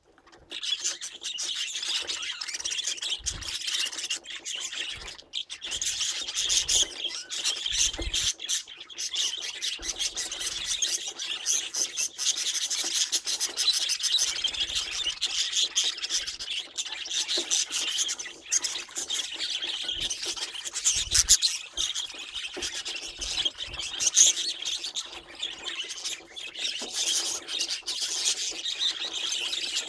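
Budgerigars chattering and warbling: a dense, continuous stream of rapid chirps and clicks.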